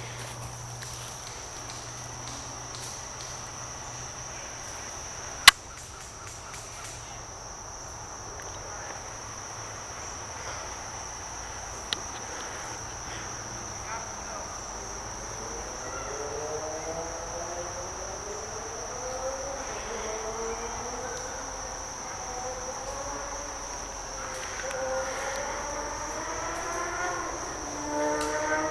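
Steady high-pitched drone of insects such as crickets or cicadas, broken by one sharp crack about five seconds in and a fainter click a few seconds later. From about halfway, a distant sound with several pitches rises repeatedly and grows louder toward the end.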